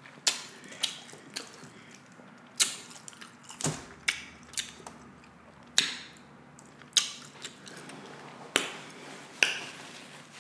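Close-miked eating of instant noodles and beef kielbasa sausage: chewing with sharp, wet mouth smacks and clicks about a second apart.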